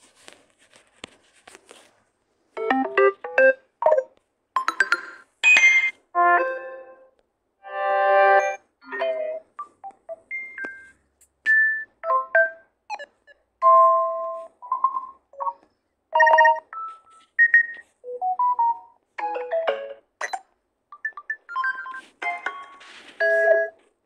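Samsung Galaxy Tab A8 notification sounds previewed one after another: a quick string of short electronic chimes and jingles, each about a second long or less, with brief gaps between them, starting a couple of seconds in.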